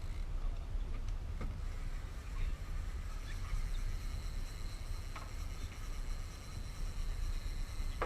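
Steady low rumble of an offshore fishing boat at rest on the water, its motors and the sea giving a constant low drone, with a few faint ticks and knocks.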